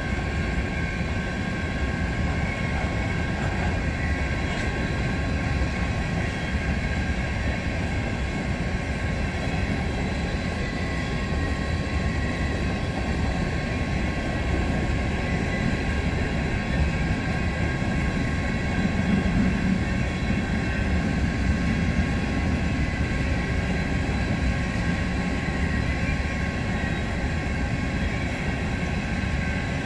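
Freight train of empty coal hoppers rolling steadily past, a continuous rumble of wheels on rail with steady high ringing tones above it. A low swell rises briefly about twenty seconds in.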